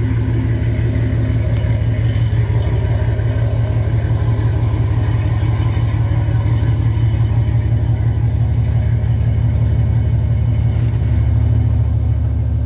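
GMC Sierra's 5.3 V8 with long-tube headers and a loud exhaust, running with a steady deep throb near idle as the truck backs up slowly.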